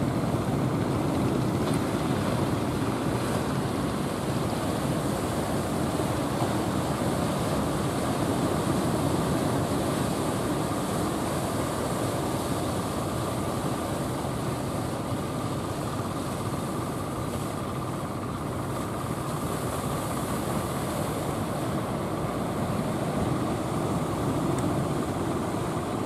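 Continuous roar of heavy surf breaking on the shore, steady and unbroken.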